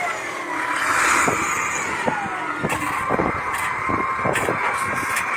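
A truck engine running, then from about a second and a half in, a shovel digging into gravel and rocks, with irregular scrapes and knocks.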